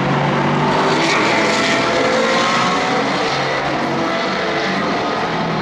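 Prototype race car's engine running at speed as the car goes by on the circuit, a steady pitched drone with a hiss of tyres and air, easing off a little near the end.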